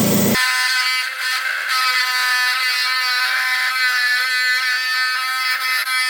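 Rock saw cutting through an ammonite fossil: a steady, thin, high-pitched mechanical whine.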